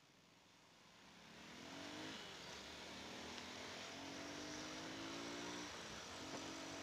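Motorcycle engine pulling away from a stop and accelerating, starting about a second in; its pitch rises and drops back twice, as it shifts up through the gears.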